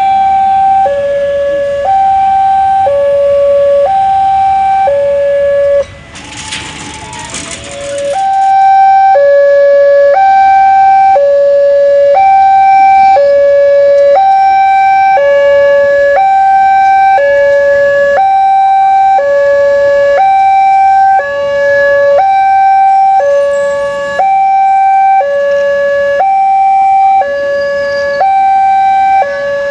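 Two-tone hi-lo siren, steadily alternating between a higher and a lower note about once a second. About six seconds in it breaks off for a two-second rush of noise, then resumes.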